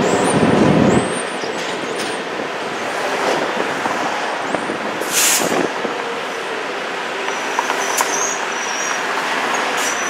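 TTC streetcar running along the street, heard from inside the car: a steady rumble of the wheels and running gear that eases about a second in, with faint high wheel squeals early on. Two short air hisses come about five seconds apart.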